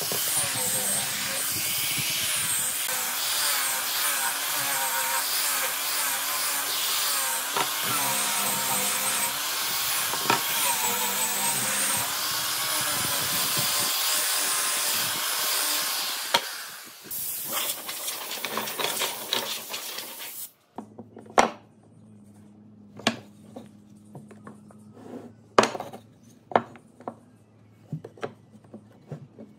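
A hand-held power tool working wood, running under load with its pitch wavering, then winding down a little past the middle. After that come a few scattered sharp knocks and clicks.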